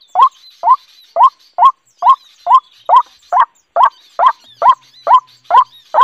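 A bird call, a short rising note repeated evenly a little over twice a second at a steady level: the lure call at a bird trap.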